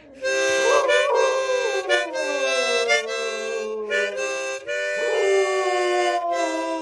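Harmonica playing held chords that change about once a second, while a dog howls along in long howls that slide down in pitch; a fresh howl starts about five seconds in.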